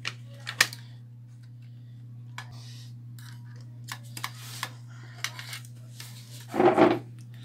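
Metal and plastic handling clicks as a CPU heatsink cooler is fitted to a motherboard and its retention clips and a screwdriver are handled. Two sharp knocks come in the first second, then a run of light clicks, and a louder clatter near the end.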